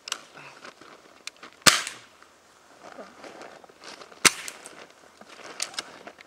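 Two sharp gunshots, about two and a half seconds apart, from a small gun fired at block targets, with faint clicks in between.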